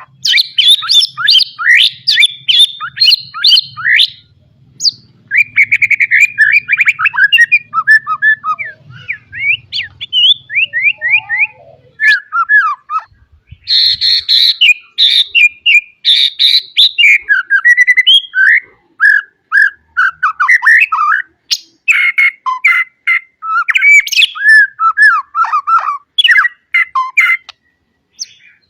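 White-rumped shama (murai batu) singing a long, varied song of fast whistled and chattering phrases. The song is broken by short pauses and is full of isian, the calls of other birds that it mimics.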